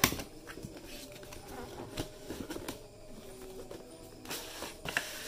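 Sealed graphics-card box and its plastic wrapping being handled and opened: light rustling with a handful of sharp taps and clicks scattered through it.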